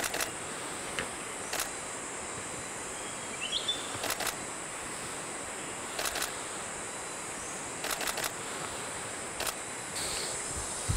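Steady forest ambience with a high insect drone, broken every second or two by sharp clicks, some in quick pairs or a triple, and one short bird chirp partway through.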